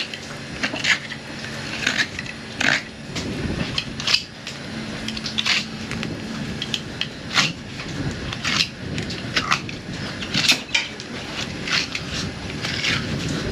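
Fillet knife cutting and scraping along an alligator gar's hard, armoured scales, making irregular sharp clicks and scrapes.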